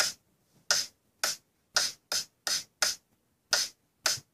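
Sparse backing beat of short, crisp percussive hits, roughly two a second in a loose syncopated rhythm, with silence between the hits.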